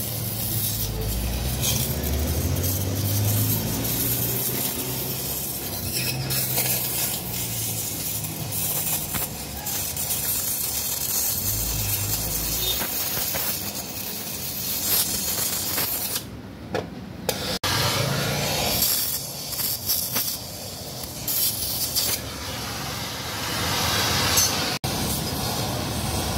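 Gas cutting torch hissing steadily as its flame burns inside a motorcycle muffler shell, cutting through the muffler's internal baffle. A low rumble rises twice in the first half, and the hiss drops out briefly a little past the middle.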